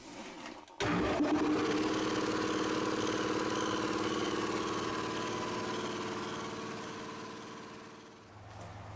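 Two-stage air compressor with a 220-volt electric motor starting up suddenly about a second in and running steadily, growing fainter over the last few seconds until only a low hum is left.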